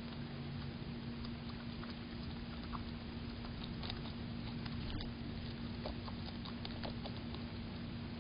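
Faint steady pattering of a small fountain spraying into a water bowl, over a low steady hum, with scattered soft clicks of groundhogs chewing tomatoes.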